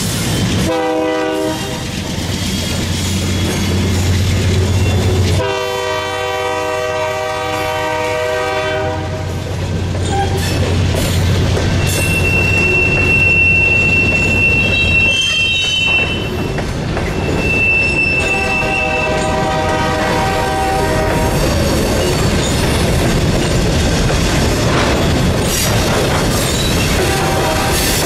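Diesel freight locomotive blowing its air horn, a short blast then a long one, over the low rumble of its engine. A further long blast comes past the middle. Freight cars rolling by with high-pitched wheel squeal and clickety-clack over the rail joints.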